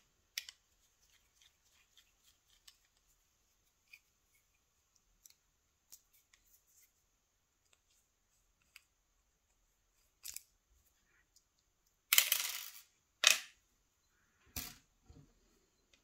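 Small metal parts of a Mottura pump lock cylinder clicking and scraping as the cylinder is worked apart with a screwdriver: faint scattered ticks, then a short scrape about twelve seconds in, a sharp click right after, and a few more clicks near the end.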